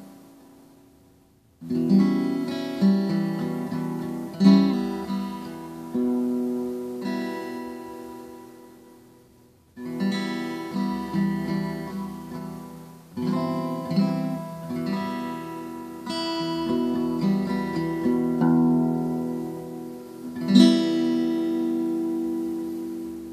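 Solo steel-string acoustic guitar: chords plucked and strummed, each left to ring and fade. The sound dies away almost to nothing twice, about a second in and again near the middle, before the playing picks up again.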